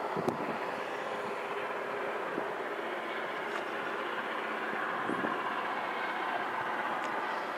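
A distant train approaching along the line: a steady, far-off drone carrying a hum of several steady tones.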